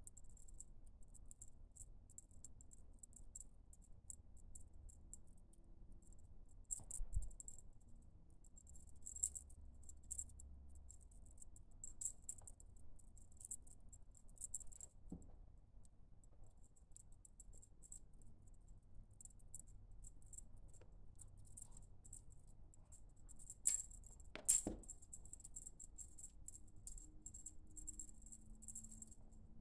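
Faint jingling and rattling in short bursts as a kitten plays. A few sharper knocks stand out: one about seven seconds in and two close together near the end.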